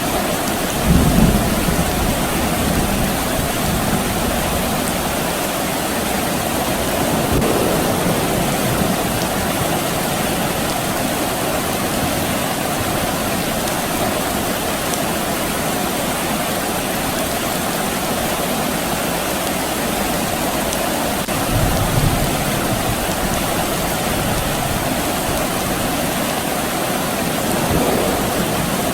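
Steady rain falling, with distant thunder rumbling low twice: briefly about a second in and again about three quarters of the way through.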